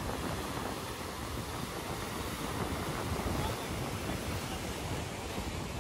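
Rough sea surf breaking and washing over shore rocks, with wind buffeting the microphone: a steady, unbroken rushing noise.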